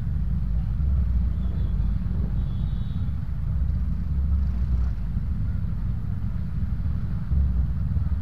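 Steady low rumble of motor scooter engines idling in stopped, packed traffic.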